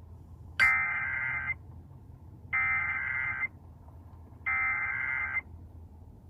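Emergency Alert System SAME header received over a radio broadcast: three bursts of buzzing digital data tones, each about a second long with about a second between them. They are the coded header that opens an Amber Alert (child abduction emergency) transmission.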